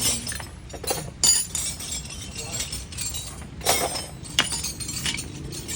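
Metal tools and parts clinking and knocking against each other, a handful of sharp, briefly ringing strikes, the loudest about a second in.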